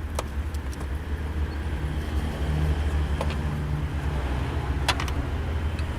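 Audi A4 B6 1.9 TDI four-cylinder diesel engine idling steadily, with a few sharp clicks among the running noise; the mechanic puts the noise down to the belt tensioner.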